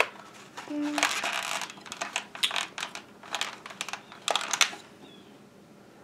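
Crinkling and rustling of small packaging, with quick sharp clicks, as a small toy piece is unwrapped by hand; the handling stops a little before five seconds in.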